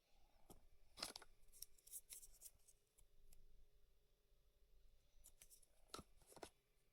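Faint, scattered sharp clicks and ticks of small hard objects being handled, in two clusters: one around the first two seconds and another near the end.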